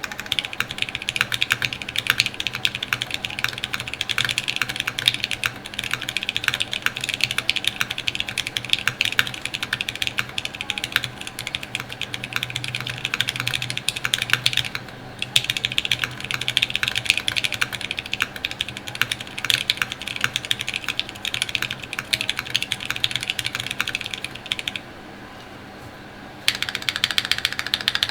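Mechanical keyboard with lubed and filmed Zealios V2 tactile switches in an FR4 plate with no foam, under CRP C64 keycaps, typed on at a fast, continuous pace. The typing breaks off briefly twice, the longer pause near the end.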